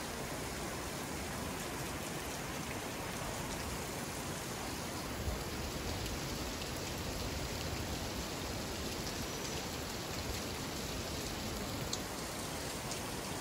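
Steady, even wash of water noise, with a faint tick about five seconds in and another near the end.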